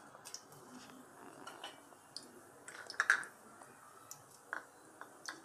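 Hot oil in a steel kadhai crackling faintly with asafoetida just added: sparse clicks and ticks, with a louder cluster about three seconds in.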